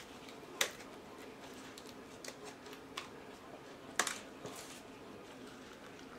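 Light clicks and taps of plastic paint cups and stir sticks being handled, four or five over a few seconds, the sharpest about four seconds in, over a faint steady hum.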